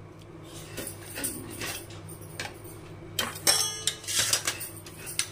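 Light clinks and taps of steel kitchen utensils and vessels, with one ringing metallic clink about three and a half seconds in, over a low steady hum.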